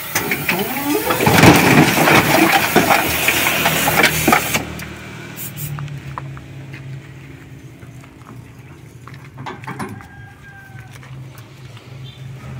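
Crash-damaged Mitsubishi Canter truck cab being pulled off its chassis: a few seconds of loud metal crashing, clanking and scraping, with a voice calling out. Then only a low steady hum with scattered faint clinks.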